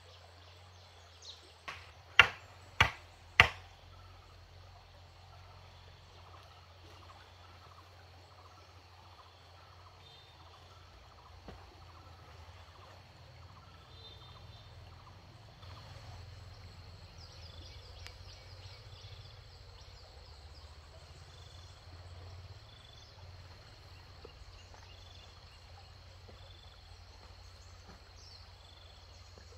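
Three sharp knocks on wooden poles about half a second apart, with a couple of lighter taps just before, then faint forest background with bird chirps and a steady high insect whine.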